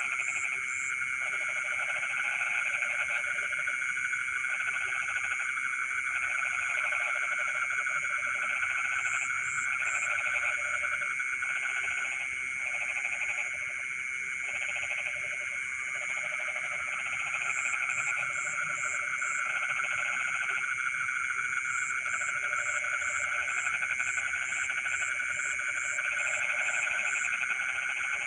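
Chorus of frogs calling, lower croaking calls coming in repeated bursts about a second long over a steady high trilling chorus, with short runs of high pips now and then.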